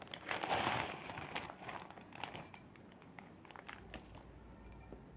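Plastic instant-ramen packaging crinkling as it is handled, densest in the first second and a half, then a few scattered crackles that die away about four seconds in.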